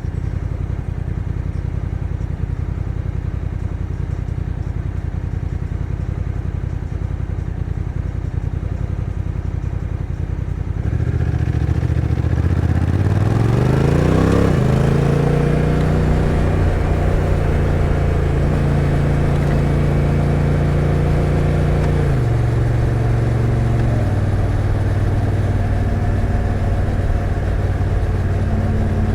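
Honda NT1100's 1,084 cc parallel-twin engine idling with a low, steady throb, then pulling away about a third of the way in. The pitch climbs for a few seconds and drops sharply as the dual-clutch transmission shifts up. It then holds steady and steps down again about three-quarters of the way through.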